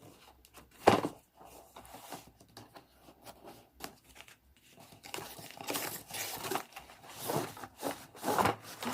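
A cardboard box and its packaging being handled and opened: a sharp knock about a second in, scattered clicks and crinkles, then steadier rustling and crinkling over the last few seconds.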